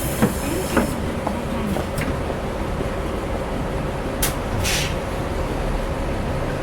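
A city bus running at a stop with traffic going past, a steady rumbling noise bed. A few sharp clicks come in the first two seconds, and two short hisses come about four and a half seconds in.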